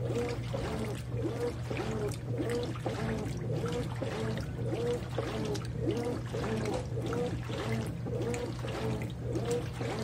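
Consul 13 kg top-load washing machine agitating a load of towels in water: water sloshing and splashing over a steady motor hum, with a whine that rises and falls about twice a second as the agitation swings back and forth.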